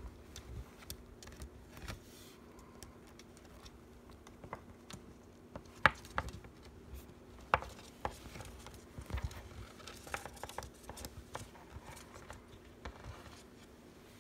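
Irregular small clicks and crunches of a pet chewing treats, with a few sharper snaps about six and seven and a half seconds in, over a steady faint hum.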